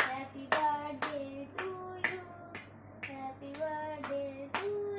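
Children and family singing a birthday song together, clapping along about twice a second.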